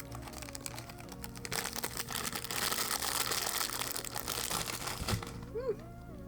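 Plastic candy bag crinkling and rustling as it is opened and handled. It starts as quick crackles, then a dense rustle fills the middle few seconds.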